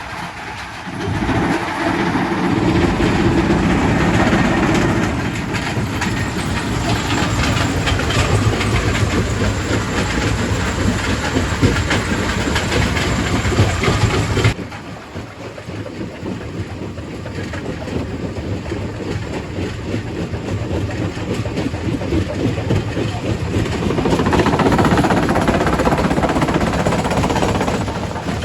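Quarry primary rock crusher running and crushing stone: a dense, continuous mechanical noise full of small impacts. It drops suddenly in level about halfway through and swells again near the end.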